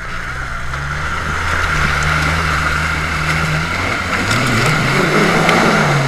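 Small Suzuki Samurai 4x4's engine working under load as it churns through a mud hole, with a steady hiss of tyres and slop under it. The revs hold steady at first, climb about four seconds in as the throttle opens, then drop back near the end.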